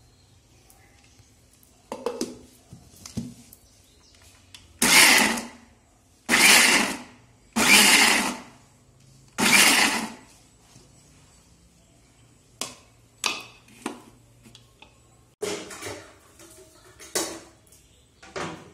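Kitchen mixer grinder run in four short pulses of about a second each, grinding masala or paste. Lighter knocks and clatter, likely the jar and lid being handled, come before and after the pulses.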